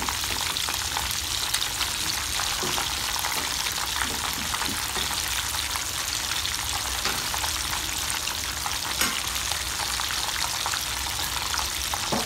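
Flour-coated chicken pieces deep-frying in a pan of hot oil: a steady sizzle with scattered fine crackles.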